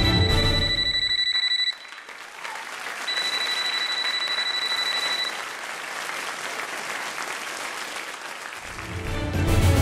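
Music breaks off about two seconds in and an audience applauds; the music starts again near the end. A steady high tone sounds over the music at first and again for about two seconds during the applause.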